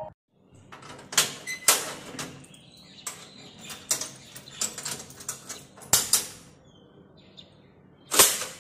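Metal security grille door being worked by hand: its barrel bolt, lock and door knob giving a run of sharp metal clicks and clanks, the loudest near the end.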